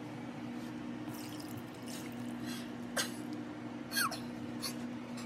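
Custard mixture being poured from a bowl through a plastic colander, splashing and dripping, with a few sharp clicks and knocks of the bowl against the colander about halfway through and a brief squeak near the second knock. A steady low hum sits underneath.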